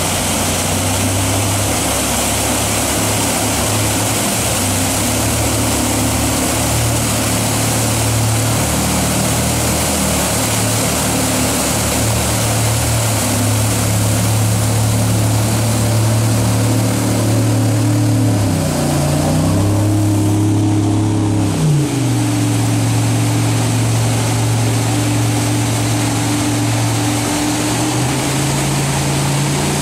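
Jet boat engines running hard as the boats climb through a rapid's wave train, over the steady rush of whitewater. About two-thirds of the way through, the engine note rises sharply, holds for a few seconds, then drops back.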